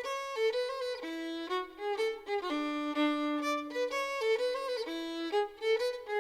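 Solo fiddle playing a slow melody, note after note with one long held low note near the middle.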